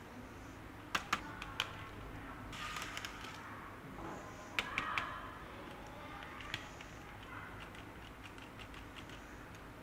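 Packaging and model parts being handled: several sharp clicks and taps, some in quick pairs or triples, between short stretches of rustling.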